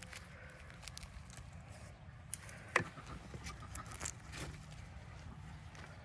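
Hands digging through loose garden soil for fingerling potatoes: faint rustling and scraping with a few light taps, and one sharper click a little under three seconds in.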